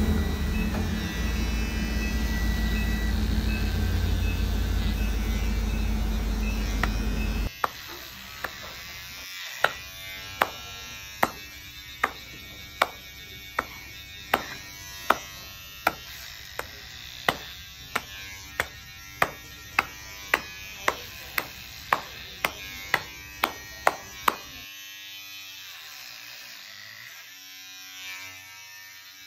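Electric hair clippers buzzing steadily, cutting off suddenly about seven seconds in. A run of sharp clicks follows, a little more than one a second and coming faster toward the end, stopping about five seconds before the end.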